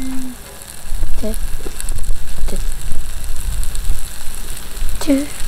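Chicken yakitori skewers sizzling and crackling on a hot aluminium-alloy multi-griddle over a gas stove. A loud, uneven low rumble runs underneath.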